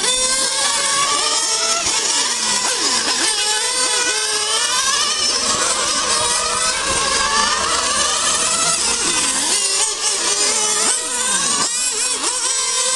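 Several radio-controlled model race cars' small engines running at high revs on the track, their high-pitched whine rising and falling as the cars accelerate and brake through the corners.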